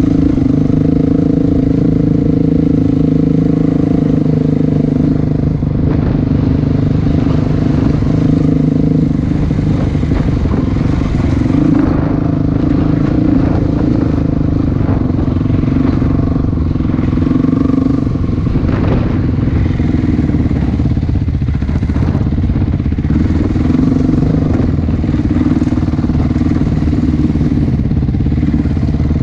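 A vehicle engine running steadily while under way, its pitch drifting slightly up and down, over continuous ride noise.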